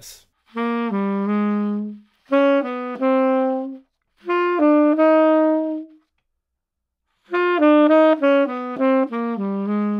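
Tenor saxophone playing four short phrases of quick jazz enclosure figures, each landing on a longer held note. The figures circle the notes of an Ab major triad. The held targets step upward, and a longer final phrase ends back on the lowest note.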